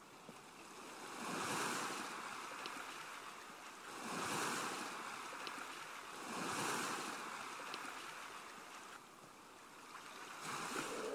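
Sea waves washing in, faint, swelling three times about two and a half seconds apart.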